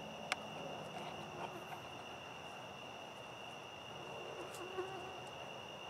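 Faint, steady high-pitched trilling of night insects, with one sharp click about a third of a second in.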